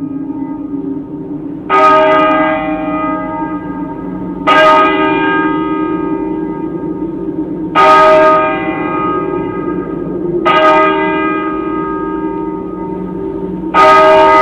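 A large bell tolls slowly, five strikes about three seconds apart, each ringing on, over a steady low drone.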